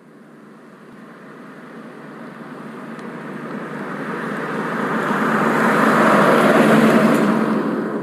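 A car drives by, its engine and tyre noise growing steadily louder as it approaches, peaking about six to seven seconds in, then starting to fade as it passes.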